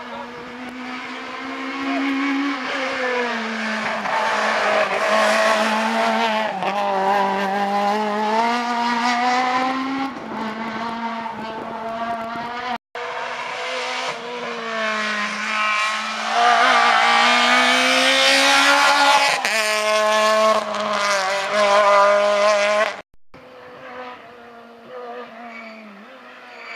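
Rally car engines at high revs, the pitch climbing and dropping through gear changes in three cut-together passes. The loudest is in the middle, and after a cut about three quarters of the way in the engine is fainter.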